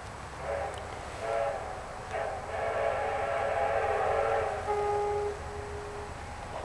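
Victorian Railways R-class steam locomotive whistle sounding a chord: two short blasts, then a long blast that tails off into a thinner, lower note.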